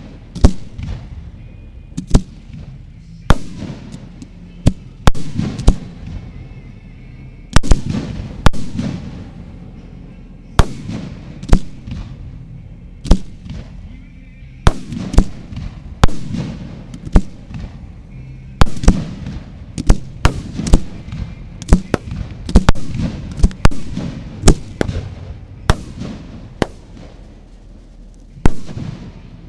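Fireworks display: aerial shells bursting in a string of sharp bangs at irregular intervals, often several in quick succession, each trailing off in a low rumble.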